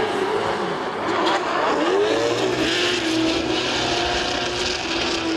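Two drift cars, a Nissan Silvia and a home-built drift car, running hard in tandem: engines held at high revs, their pitch rising and dipping with the throttle, over a steady hiss of tyres sliding and spinning.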